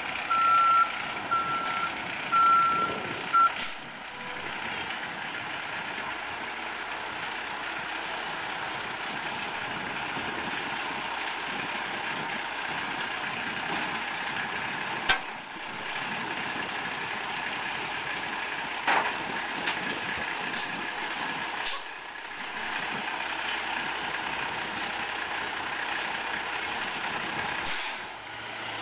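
2005 Peterbilt 320 front-loader garbage truck with an Amrep body: its reversing alarm beeps evenly for the first three or four seconds. The truck's engine and hydraulics then run steadily with a faint whine as the forks line up with a steel dumpster. There is a single sharp knock about halfway through and a couple of lighter clanks later.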